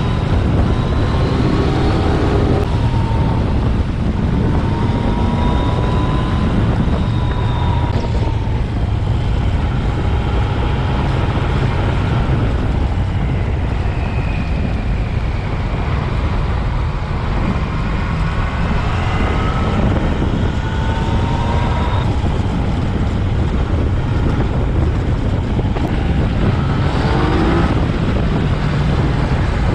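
Yamaha XSR900's inline three-cylinder engine running under way, its pitch climbing and dropping repeatedly as the bike accelerates and eases off, over a steady low rumble of wind and road.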